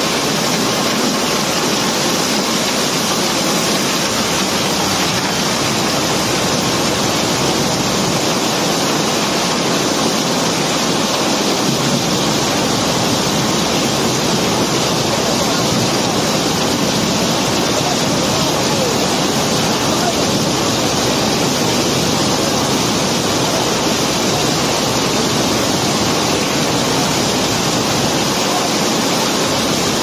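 Loose river rock pouring steadily down an unloading chute from a barge hold onto a conveyor belt, a continuous, even rushing noise.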